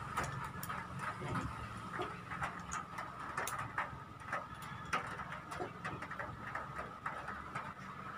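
Scattered small plastic clicks and taps from handling and fitting a smartphone into a tripod's spring-clamp phone holder, over a faint steady background hum.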